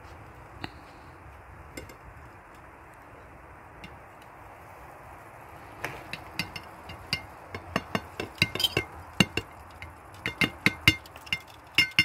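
Low steady background with a few faint clicks, then from about halfway a run of sharp metallic clinks against crockery that come quicker near the end: a hinged wire grill basket and tableware knocking on plates as grilled kofta is served.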